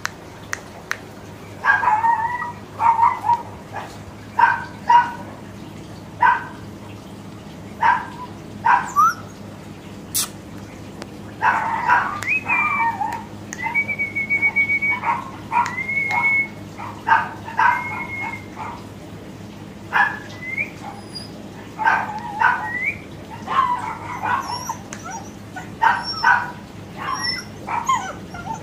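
Doberman puppy yapping in short, high barks again and again, with a few drawn-out whines in the middle stretch.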